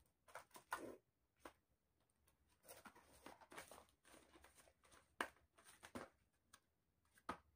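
Near silence with faint, scattered small clicks and rustles: small makeup products and their packaging being handled.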